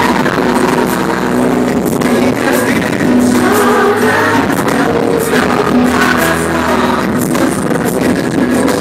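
Male K-pop group singing a pop song live into microphones over a loud backing track with a steady beat, heard from the audience in a large arena.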